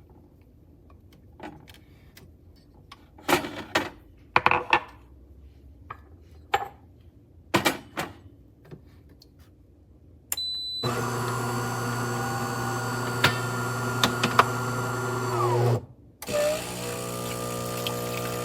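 De'Longhi Magnifica Start espresso machine making a drink: scattered clicks and knocks, a short beep about ten seconds in, then the built-in grinder runs with a loud steady hum for about five seconds. It stops, and a second steady hum starts from the pump just before the coffee pours.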